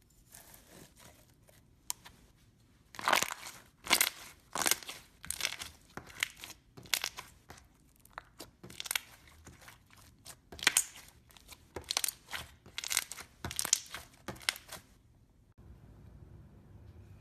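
Slime being pressed and squeezed by hand, giving irregular crackling, crunchy pops and tearing sounds in quick clusters, the loudest a few seconds in and again past the middle. The crackling stops shortly before the end, leaving only a low hum.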